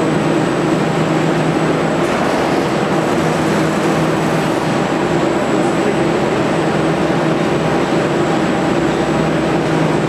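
Gondola lift station machinery running: a steady, loud mechanical hum from the drive and the haul rope turning over the bullwheel as a cabin passes through the station.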